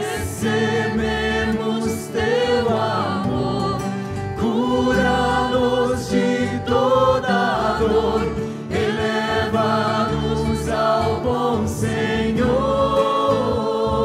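Music: a choir singing a Marian devotional hymn, with held, wavering notes.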